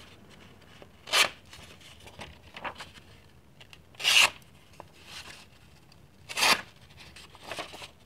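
Clip point blade of an old stockman pocket knife slicing through a sheet of paper: three louder slicing strokes about two and a half seconds apart, with fainter strokes between. The blade cuts cleanly, the freshly sharpened clip point passing the paper test.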